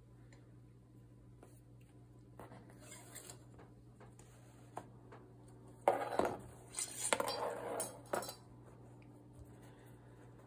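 A long metal weaving hook and a weaving stick are drawn out of the cotton loops on a potholder loom and set down on a tabletop. They clatter and clink for about two seconds, starting about six seconds in, after a quiet stretch with only faint rustling of the loops.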